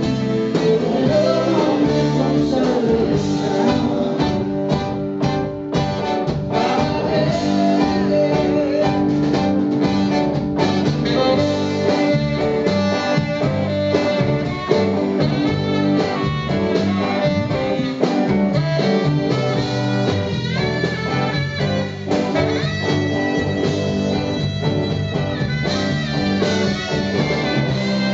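Live soul-rock band playing, with a saxophone solo over electric guitar, drums and keyboards; a lead vocal line is heard near the start.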